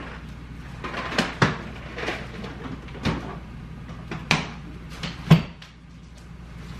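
Kitchen clatter: about five sharp knocks and clunks of doors and things being handled, the loudest about five seconds in.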